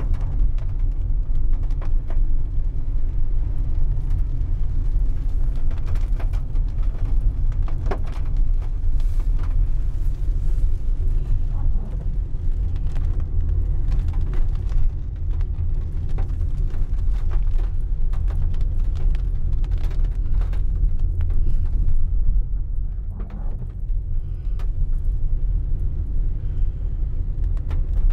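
Steady deep road rumble inside a car driving on a wet road, with scattered ticks of raindrops hitting the windscreen. The rumble eases briefly about three-quarters of the way through.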